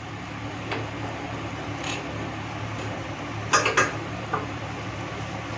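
Metal kitchen utensils clinking: a quick run of sharp clinks about three and a half seconds in and one more just after, over a steady low background hum.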